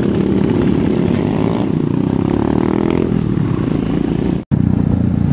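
Motorcycle engine running on the move, its pitch rising as it speeds up between about one and three seconds in. The sound cuts out completely for an instant near the end.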